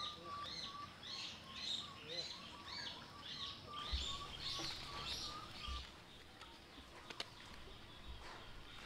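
A rapid series of short, high-pitched chirping calls, two or three a second, over a faint steady whine. Both stop a little past halfway, and a single sharp click follows near the end.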